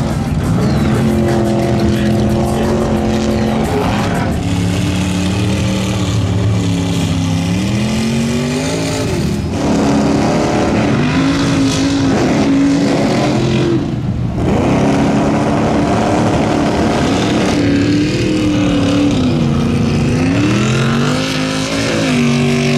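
Mega truck engines revving hard through deep mud, the engine note climbing and dropping several times as the throttle is worked.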